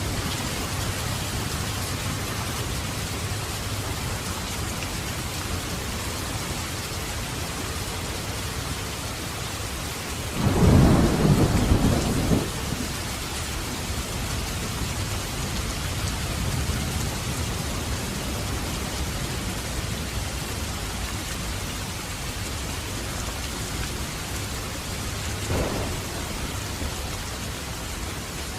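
Heavy rain falling steadily and densely. About ten seconds in, a loud crack of thunder rumbles for about two seconds, and a fainter thunder crack follows about 25 seconds in.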